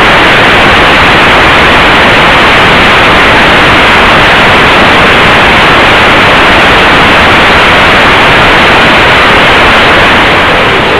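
Loud, steady static hiss with no tones in it, from the empty audio channel of an analog FPV video downlink.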